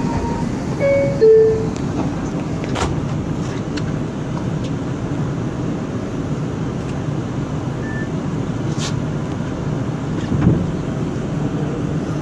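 R142 subway car's door chime, two descending tones about a second in, as the doors close. Then a steady hum of the car standing at the platform, with a couple of sharp clicks.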